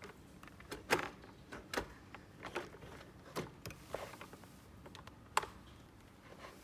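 Small toys and their packaging being handled: irregular light clicks and taps, with two sharper clicks, one about a second in and one near the end.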